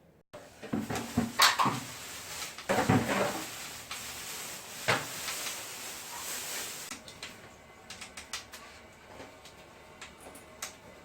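Clattering knocks of hard objects being handled, over a hiss that stops about two-thirds of the way through, followed by scattered light clicks.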